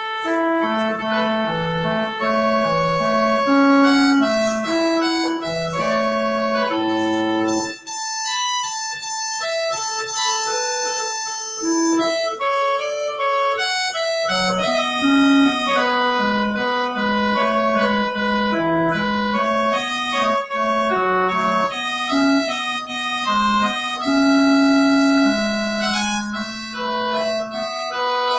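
Organ playing a slow instrumental piece: held chords and a moving melody over sustained bass notes. The bass drops out for a few seconds about a third of the way in, then returns.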